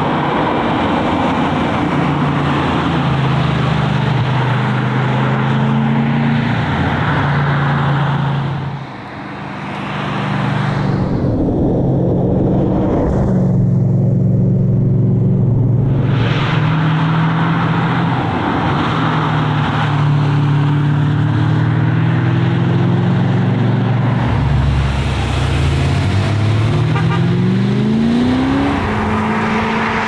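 BMW 540i (E34) 4.0-litre V8 engine driven hard. Its note holds steady and steps in pitch as it changes speed and gear, with road and tyre noise underneath. It drops briefly about nine seconds in, and near the end it rises steadily as the car accelerates.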